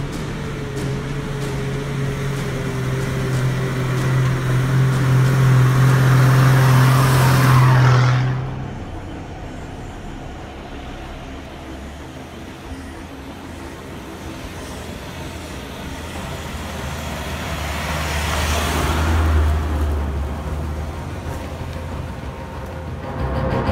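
Four-wheel drives passing one at a time on a gravel dirt track, engine and tyres on loose stones. The first grows louder as it comes close and cuts off suddenly about eight seconds in. A second approaches more quietly, passes loudest about nineteen seconds in, and fades.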